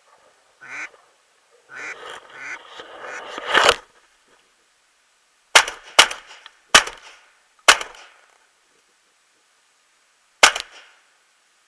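Ducks quacking in the first few seconds, then a shotgun fired six times: one shot near four seconds in, four more in quick succession over the next two seconds, and a last shot about three seconds later.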